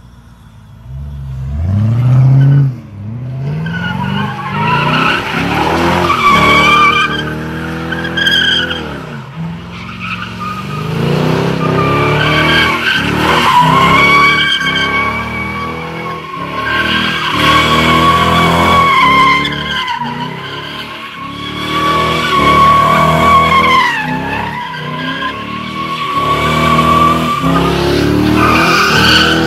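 Car drifting: the engine revs up and falls back again and again while the tyres squeal in long screeches, dropping in pitch as each slide ends.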